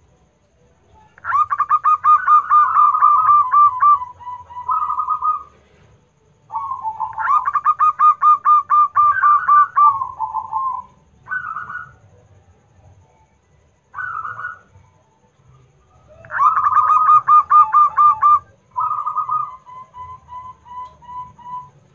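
Zebra dove (perkutut) singing: three bouts of its fast, staccato cooing, each a quick run of repeated notes that slows into a few spaced coos at the end. Short single calls come between the bouts.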